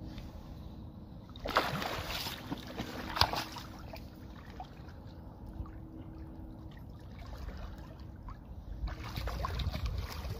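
Water splashing and sloshing as a large sturgeon is held in shallow river water and released by hand, then swims off. The loudest splashes come about one and a half and three seconds in, with lighter sloshing near the end.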